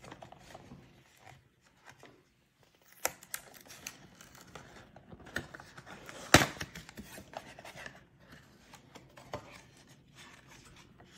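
Cardboard box being opened by hand: flaps and inner card scraping and rustling, with a few sharp clicks and snaps of the card, the loudest a little past halfway.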